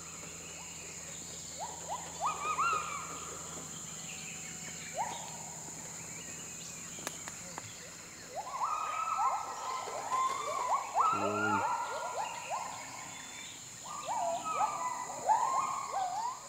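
Gibbons calling: a series of rising whooping notes, a few at a time at first, then quickening and overlapping into a dense chorus from about eight seconds in. A steady high-pitched drone runs underneath.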